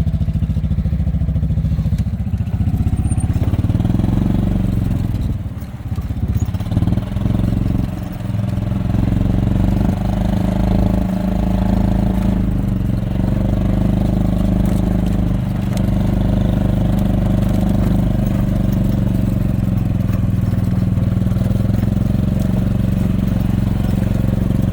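Small engine of a farm vehicle running steadily while being driven, its pitch shifting a few times in the first eight seconds or so.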